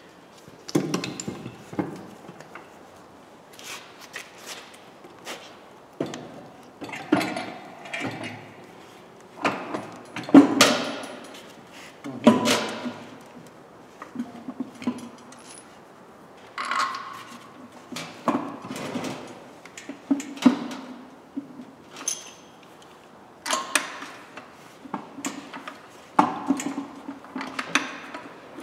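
Irregular metal clanks, knocks and scrapes of a manual gearbox casing being lifted by hand and worked onto the back of a diesel engine and its clutch, with a few louder knocks partway through.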